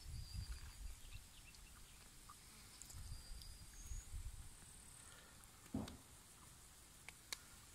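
Faint rural outdoor ambience: a few short, high bird chirps, low rumbles in the first second and again around three to four seconds in, and a couple of sharp clicks near the end.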